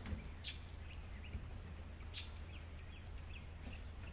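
Faint outdoor background: a few short, high bird chirps over a steady high hiss and a low rumble.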